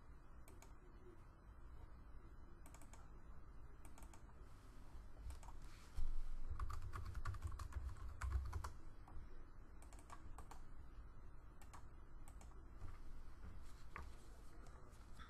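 Typing on a computer keyboard: a quick run of keystrokes about six to nine seconds in, with scattered single clicks before and after.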